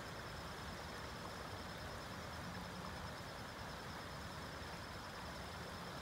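A shallow creek rushing steadily over rocks and small riffles, an even hiss of running water, with a faint high pulsing trill above it.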